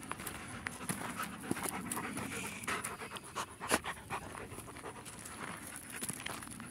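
A dog panting close to the microphone, with scattered short clicks and crunches throughout.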